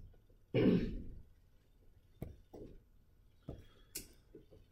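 A few light clicks of a stylus tapping on a tablet screen as pen tool settings are chosen, after a brief louder low sound about half a second in.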